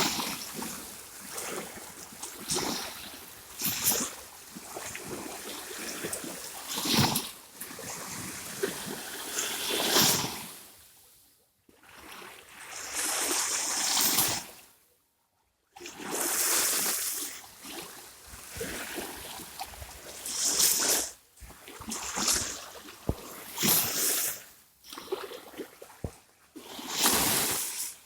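Sea water splashing and trickling in irregular bursts, with two short near-silent gaps about midway.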